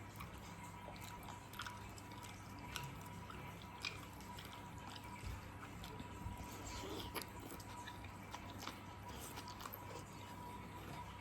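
Faint eating sounds: scattered small wet clicks and smacks of chewing and utensils, over a low steady hum.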